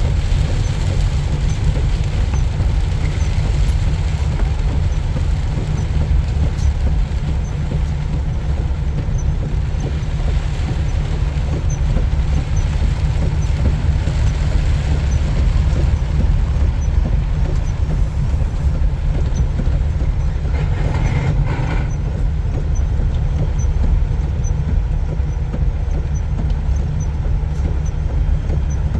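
Semi truck on the highway: a steady low rumble of engine and road noise.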